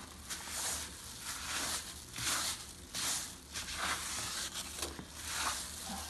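A window being wiped down by hand: a quick series of uneven rubbing, rustling strokes.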